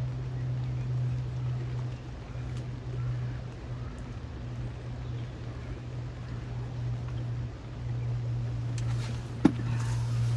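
A steady low hum with a faint hiss behind it, broken by a single sharp click about nine and a half seconds in.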